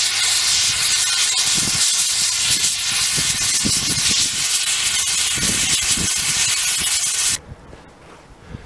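Oxy-fuel torch flame hissing steadily while it heats tight-fitting crank and rod fittings on a steam locomotive's driving wheel to free them. The hiss cuts off suddenly near the end.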